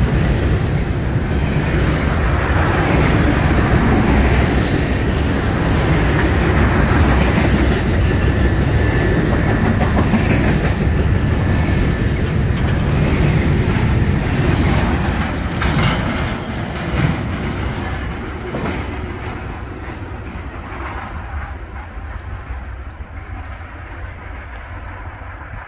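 Freight train of double-stack intermodal well cars rolling past: a steady rumble of steel wheels on rail with occasional clicks over the joints. The sound fades from about fifteen seconds in as the end of the train passes and moves away.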